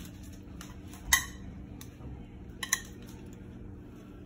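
Metal kitchen tongs clinking against an aluminium pot and a plate while crab legs and shrimp are served: a few separate sharp clinks, the loudest about a second in and two close together near three seconds in, over a faint steady hum.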